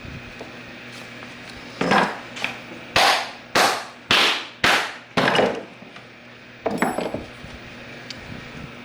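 A run of about seven sharp thuds, about two a second, then one more thud a moment later, as the pocket of a leather softball glove is pounded to shape it.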